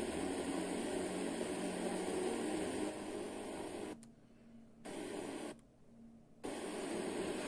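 FM receiver hiss and static from a weak, distant station barely above the noise. About two-thirds of the way through, the sound cuts out briefly twice as the tuner mutes while stepping up from 98.6 to 98.7 MHz, and the hiss returns on the new frequency.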